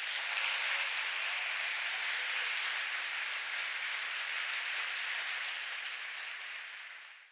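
Large audience applauding steadily, tapering off slightly before it cuts off suddenly.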